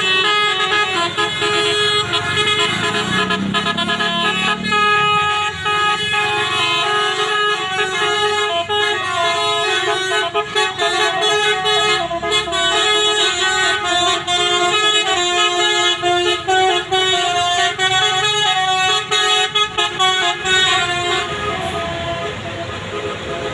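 Basuri multi-tone musical air horn on a bus playing a fast telolet tune, with notes changing every fraction of a second from about five seconds in until near the end. Before the tune, held horn tones sound over a low engine rumble.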